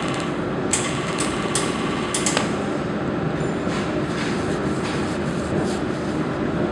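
Handheld laser welding machine running with a steady machine hum, with a handful of short, sharp high-pitched clicks in the first couple of seconds.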